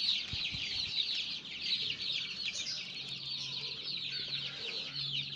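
A crowd of 19-day-old ayam kampung super (Joper) chicks peeping all at once, a dense, unbroken chorus of short, high, downward-falling cheeps.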